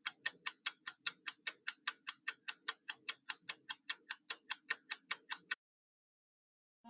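Rapid, even clock-like ticking, about five ticks a second, that cuts off suddenly about five and a half seconds in.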